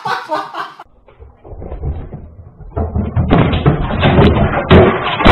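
Clattering knocks and thumps, growing much louder about three seconds in, heard through a low-quality security-camera microphone.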